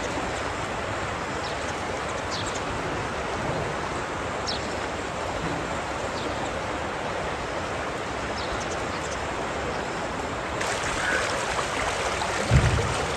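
Steady rush of floodwater flowing along a flooded street, with a short low thump near the end.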